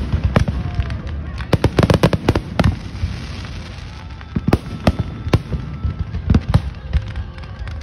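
Fireworks display: shells bursting in loud, irregular bangs and crackles, with a dense flurry of reports about two seconds in, a brief lull, then scattered single bangs.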